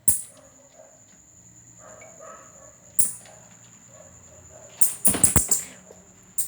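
A cat scrambling into a cardboard box: a loud burst of scratching and scrabbling about five seconds in, after two sharp clicks, one at the start and one about three seconds in.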